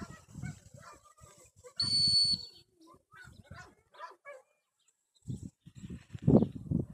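Retriever dog whining and yelping in short calls, louder near the end, with one short, high steady tone about two seconds in.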